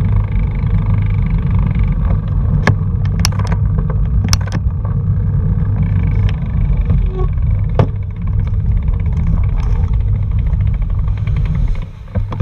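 Vehicle engine running under a steady loud road-and-wind rumble with a constant low hum, broken by a few sharp knocks. The rumble drops away about a second before the end as the vehicle slows.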